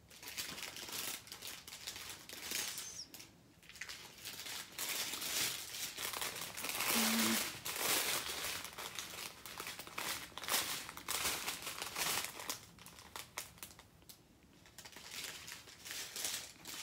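Strips of small plastic zip bags of diamond painting drills crinkling and rustling as they are handled and turned over, in irregular bursts that are loudest about halfway through.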